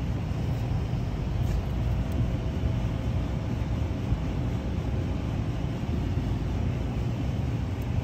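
Carrier Weathermaster rooftop package unit running steadily under refrigerant charge: a steady low hum and rush from its compressor and condenser fan, with a faint steady tone above it.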